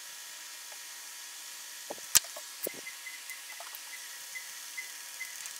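Leather edge being burnished by hand, rubbed first with a wooden slicker and then with a canvas cloth: faint rubbing with short, faint squeaks repeating irregularly over a steady hiss. One sharp click about two seconds in.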